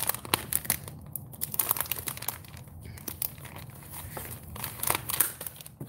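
Soft plastic wet-wipes packet crinkling and crackling in fits and starts as it is handled and wipes are pulled from it.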